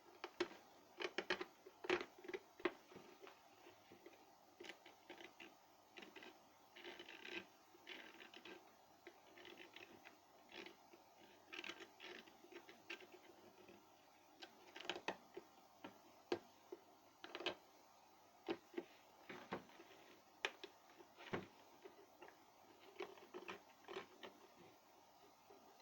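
Scattered light clicks, taps and small knocks at irregular intervals: small parts and tools being handled during a kettle repair.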